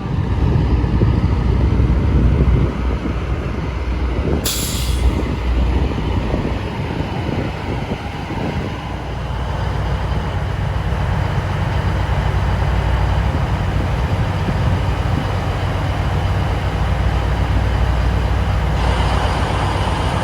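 Semi truck running, a steady low rumble of engine and road noise, with a short burst of hissing about four and a half seconds in.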